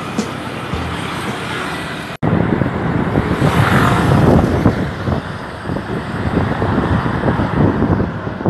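Road traffic at a city intersection. About two seconds in, a sudden cut switches to a heavy, irregular rumble of wind buffeting the phone microphone while riding a bicycle, with traffic on the road alongside.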